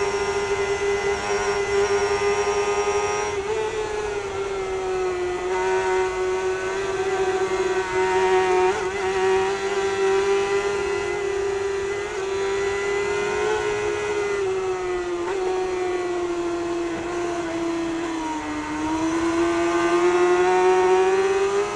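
Kawasaki superbike's inline-four engine at high revs, heard from an onboard camera with wind rush. The note holds high and fairly steady, dips briefly about fifteen seconds in and again more deeply a few seconds later, then climbs back up as the bike accelerates.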